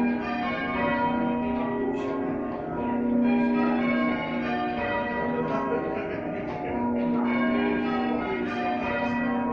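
Church bells rung by a band of bell ringers, struck one after another in a continuous sequence, each tone ringing on and overlapping the next.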